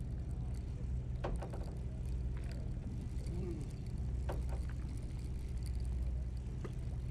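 Fishing boat's engine running with a steady low drone, with a few brief clicks and knocks over it.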